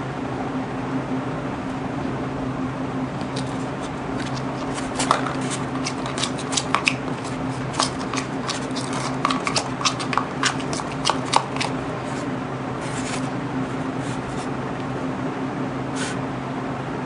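Metal spoon stirring a thick cream mixture in a plastic bowl, scraping and clicking against the sides in a quick run of strokes through the middle and once more near the end, over a steady low hum.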